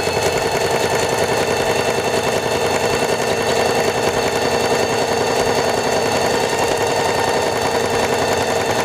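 Singer Heavy Duty 4411 sewing machine running steadily at speed, stitching a short, narrow zigzag: a motor hum with the rapid, even clatter of the needle mechanism.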